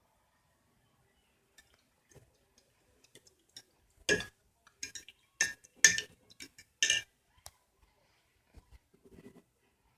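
A utensil clinking against a hard container: about five sharp, ringing clinks in quick succession about four seconds in, with faint taps and ticks before and after.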